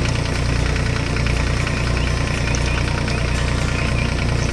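Tractor engine running steadily with a fast, even knocking chug.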